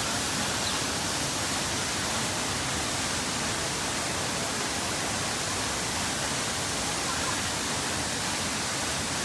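Steady rush of a waterfall, an even, unbroken noise of falling water.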